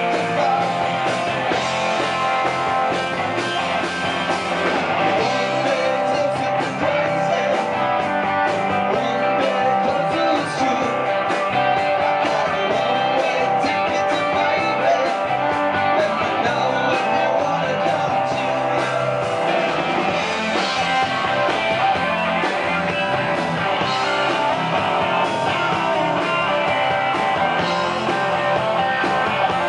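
Live rock band playing loud and steady, with electric guitar, bass guitar and a singer.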